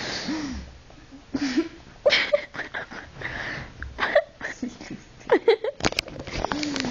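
A person giggling and laughing breathily in short irregular spurts, mixed with half-voiced mumbles, with a couple of sharp handling knocks about six seconds in.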